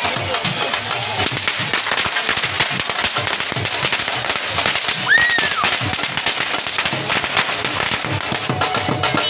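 A string of firecrackers crackling in a rapid, continuous run of pops, with a short whistle that rises and then falls about five seconds in. Music continues underneath.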